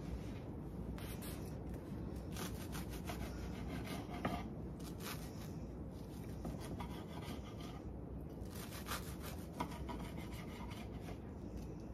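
Serrated knife sawing through a toasted brioche grilled cheese sandwich on a wooden cutting board: several runs of rasping back-and-forth strokes with short pauses between them.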